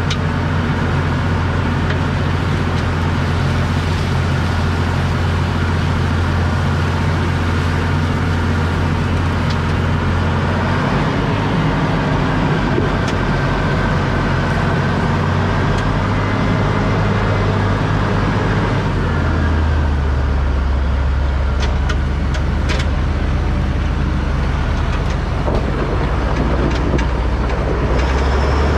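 Heavy vehicle engine running steadily with a deep drone, its pitch shifting to a new steady level twice, about eleven seconds in and again near nineteen seconds.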